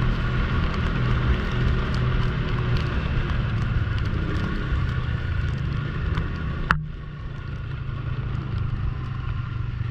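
Snowmobile engine running steadily under way, with a rumble on the microphone. About two-thirds of the way through there is a sharp click, and the higher part of the sound cuts off abruptly, leaving a lower, steady engine rumble.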